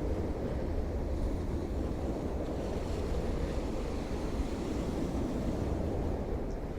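Waves of a rough Irish Sea washing and breaking against the shore, with a steady wind rumble on the microphone.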